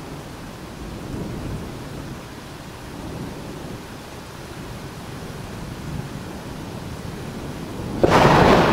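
Thunderstorm: a steady rumbling, rain-like noise that swells and fades, then a sudden loud crack of thunder about eight seconds in.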